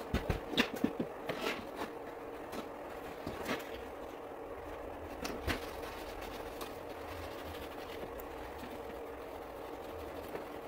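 Scattered light clicks and knocks of hand work on a pickup's roof panel, bunched in the first two seconds with a couple more later, over a steady faint hum.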